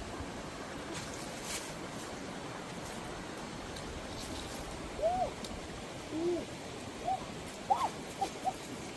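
A bird's short hooting calls, each rising and falling in pitch, starting about halfway through and coming faster toward the end, over the steady rush of a rocky stream.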